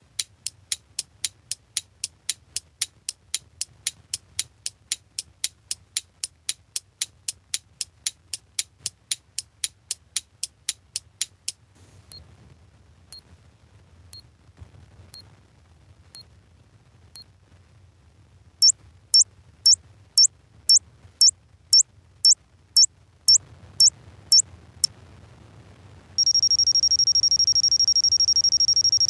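Clock ticking sound effect. Fast, even ticks at about three and a half a second run for some eleven seconds, then single ticks come once a second, then about two a second. Near the end a steady, high-pitched alarm clock tone starts.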